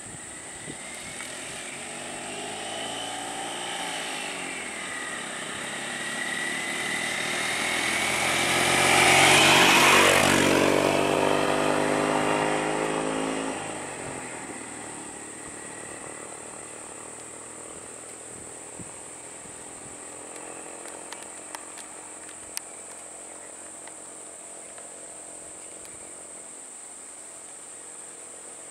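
A small truck drives up and passes close by. Its engine grows louder to a peak about ten seconds in, drops in pitch as it goes past, and fades away by about fourteen seconds. A steady high-pitched insect drone runs underneath throughout.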